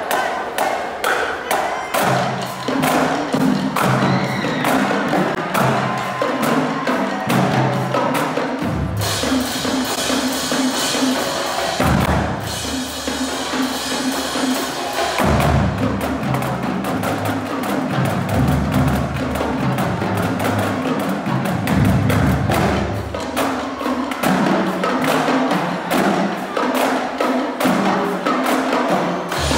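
Marching drumline playing a cadence: rapid, dense snare stick strikes over a line of marching bass drums tuned to different pitches, trading notes in rhythmic runs.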